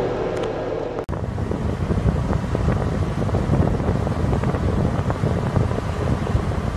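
Ride noise of a trolleybus running on battery power, heard from inside: a steady hum for about the first second, then after an abrupt cut, rough low wind buffeting on the microphone over the rumble of the moving vehicle.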